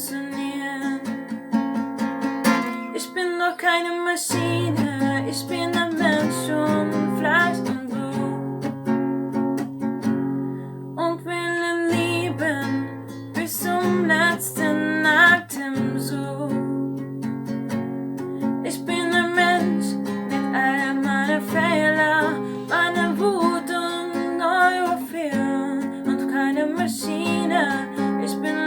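A song performed with a voice singing over a strummed acoustic guitar.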